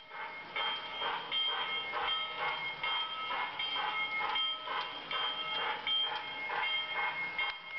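Lionel LionChief sound board in a toy steam locomotive playing its chuffing steam sound, an even rhythm of about two chuffs a second paced by a self-flashing LED read by a photoresistor instead of a tach strip. Thin high steady tones come and go over the chuffing.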